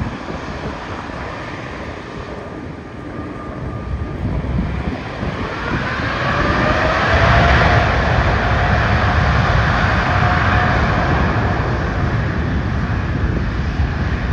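Boeing 787 Dreamliner's jet engines whining as it taxis past, growing louder through the first half. A whine rises in pitch about five seconds in and then holds steady, over a low rumble with wind on the microphone.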